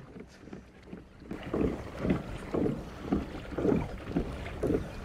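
Kayak being propelled across calm water, with a regular swishing beat of its strokes about twice a second, starting about a second in.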